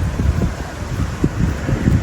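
Wind buffeting the microphone in irregular low gusts, over a steady background hiss.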